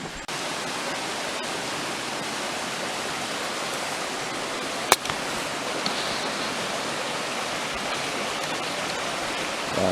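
Brook water rushing steadily over rocks, a constant even roar, with one brief sharp click about five seconds in.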